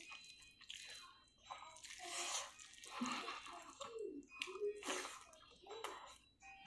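Close-up wet eating sounds: chewing and mouth smacking, with scattered short sharp clicks.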